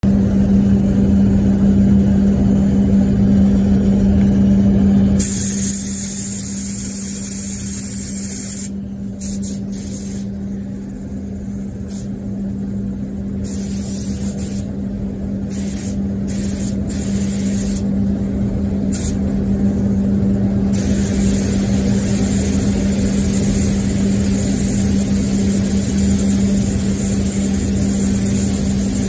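Compressed-air hiss of an Aeropro A608 gravity-feed air spray gun spraying paint, over a steady low hum. The hiss is loudest in the first five seconds, drops out in stretches in the middle, and builds back steadily toward the end.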